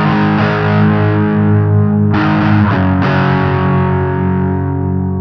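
Music: sustained guitar chords ringing out, with new chords struck about two and three seconds in.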